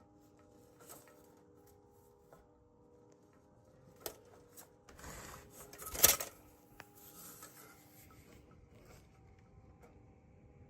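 A steady, low mechanical drone made of several held tones, continuous and unchanging, of unknown origin. About five seconds in, a louder scraping rustle builds and peaks in a sharp crack near six seconds, with a few faint ticks scattered around it.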